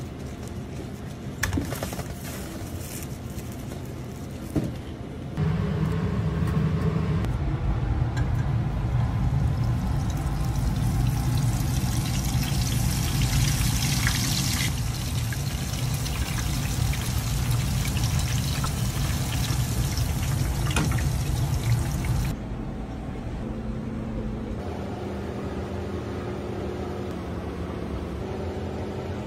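A corn-flake-coated ice cream ball deep-frying in a wire basket. The oil bubbles and sizzles loudly, starting suddenly a few seconds in and cutting off suddenly about three quarters of the way through. Before it come a few crunching knocks, and after it a steady low hum.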